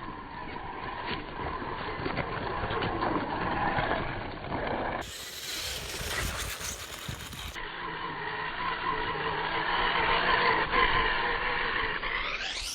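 Traxxas Summit 1/16 RC car driving, its brushed Tamiya silver-can motor and gearbox whining and rising and falling in pitch with the throttle, over clicking and rattling from the chassis on rough ground. The whine climbs steeply just before the end.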